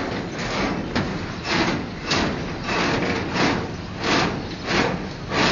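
Rhythmic scraping strokes from manual construction work, about one every two-thirds of a second, each a short rasping swish.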